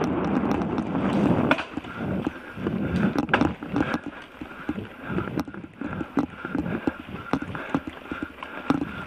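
Wind buffeting a helmet-mounted camera microphone, easing off about a second and a half in, then the irregular clicks, knocks and rattle of a 2018 Orbea Alma 29er hardtail mountain bike rolling over a dirt forest singletrack.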